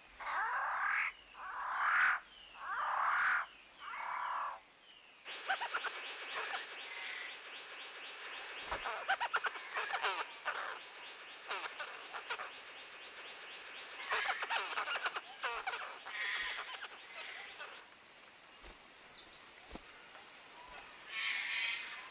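Rainforest animal chorus. Four loud calls, each about a second long, open it. From about five seconds in, a dense chorus of rapid clicking and trilling calls takes over, with bird calls and a steady high whine throughout.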